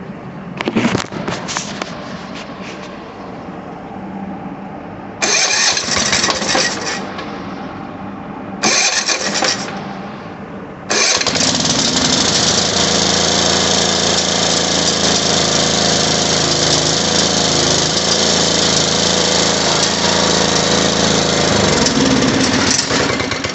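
Small lawn mower engine fitted with a replacement for its failed Tecumseh carburetor, pull-started: three short bursts that die away, then it catches about 11 seconds in and runs steadily until it is shut off near the end. The steady running shows the new carburetor has cured the no-start.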